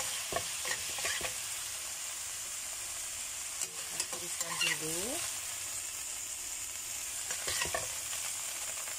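Chicken pieces sizzling in hot oil in a frying pan, frying to half-cooked, with a steady hiss. A spatula scrapes and clicks against the pan a few times as the pieces are stirred and scooped out to drain.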